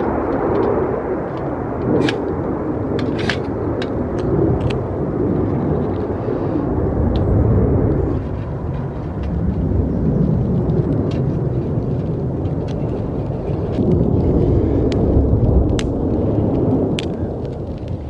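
Fighter jets rumbling steadily overhead, the roar swelling and easing twice, with scattered sharp clicks of dry twigs being handled and snapped into a small wood stove.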